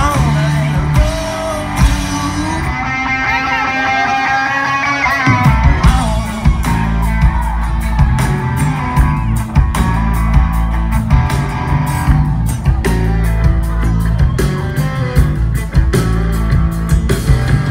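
Live country-rock band playing loud through the PA, heard from the crowd: electric and acoustic guitars over drums and bass. Around three seconds in the bass and drums drop away under a bending lead line, and the full band comes back in with a steady beat a little after five seconds in.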